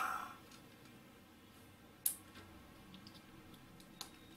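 Small clicks from handling a 9 V battery and its snap connector: one sharp click about two seconds in, a lighter one near the end as the connector is pressed onto the battery terminals.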